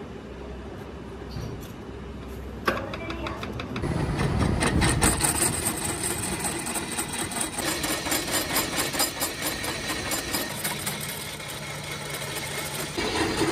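Metal lathe running as a rotating cutter in the spindle machines the face of a cast donkey-pump body clamped on the carriage. A sharp knock comes about three seconds in, and about a second later the cut bites and grows louder, a fast, even rattle of metal cutting.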